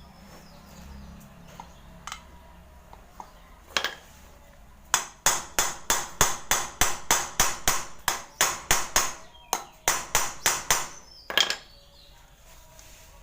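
A quick run of sharp knocks, about three a second for some six seconds, with single knocks a second or so before and after.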